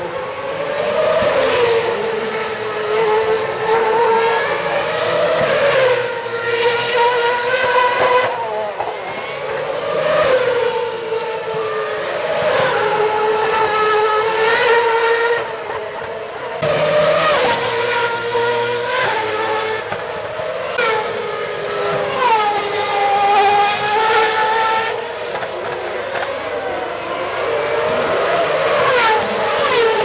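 2010 Formula One cars' 2.4-litre V8 engines passing one after another at high revs. Their pitch rises and falls over and over as they accelerate, shift and brake, with several cars often heard at once.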